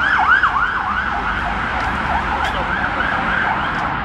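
Emergency vehicle siren in a fast yelp, about four rising-and-falling sweeps a second, fading away over the first three seconds, over a steady rumble of road traffic.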